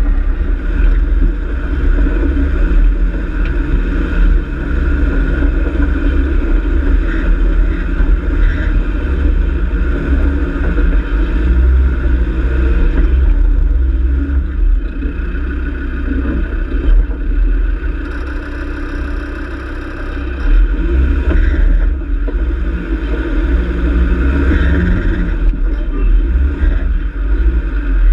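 A 4x4 off-road vehicle driving slowly over a rough, rocky track: its engine runs steadily under a heavy, continuous low rumble, easing off briefly about two-thirds of the way through.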